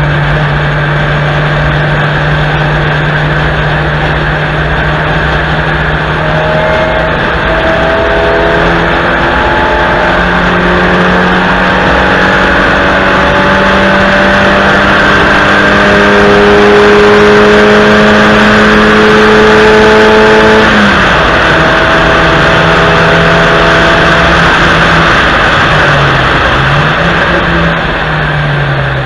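Honda Civic IV hatchback's four-cylinder engine pulling hard on track, its note climbing slowly through a long stretch and then dropping sharply about two-thirds of the way through, with a short dip near the end, over a steady rush of wind and tyre noise.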